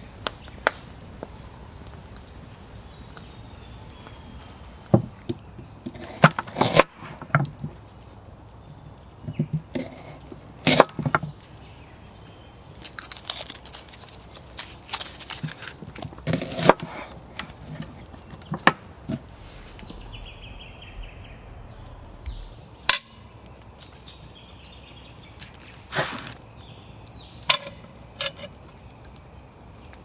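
Scattered knocks, clicks and clinks of objects being handled, irregular and never settling into a rhythm, over a steady low outdoor hiss, with a few faint bird chirps.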